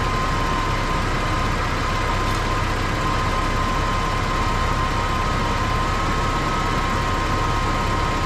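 Pickup truck's engine idling steadily: an even, unchanging drone with a low hum and a thin steady whine on top.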